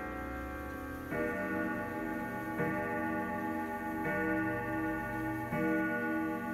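Kieninger triple-chime grandfather clock movement striking: a deep ringing tone struck four times, about every second and a half, each strike ringing on into the next.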